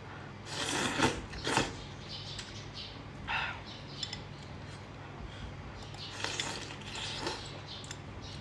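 Sounds of someone eating at a table: two loud bursts about a second in, then a few shorter ones, with light clinks of tableware.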